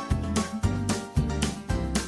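Background music with a steady, regular beat of about two strikes a second.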